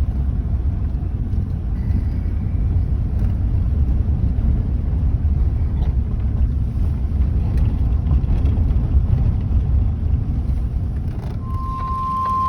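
Steady low rumble of a car on the move, road and wind noise heard from inside the cabin. Near the end a single steady high tone starts and holds, the weather radio alert tone that comes before a warning broadcast.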